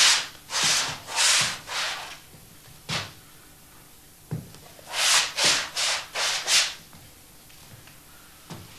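A paintbrush rubbing in short, scratchy strokes: about four in the first two seconds, one near three seconds, then a quick run of five from five seconds in.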